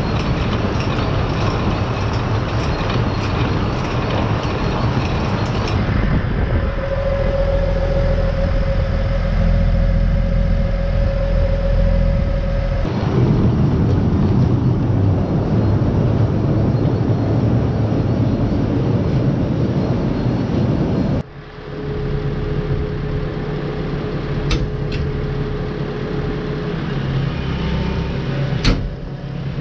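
Farm machinery running steadily, including a tractor engine and potato conveyors. The sound changes abruptly about 6, 13 and 21 seconds in, with a steady whine for several seconds in the middle and again near the end, and two sharp clicks near the end.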